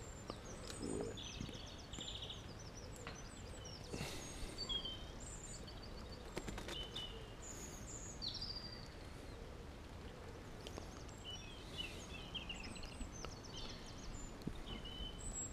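Small songbirds chirping and trilling off and on, faint, over a steady low outdoor background noise, with a few faint knocks.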